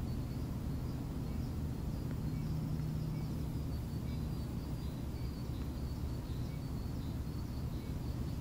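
Outdoor ambience: a steady low rumble with faint, short, high chirps repeating throughout.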